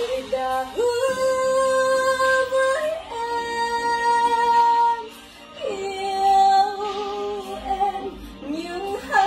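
A woman singing a slow ballad in long, high held notes, sliding up into each one, with a short break for breath about five and a half seconds in.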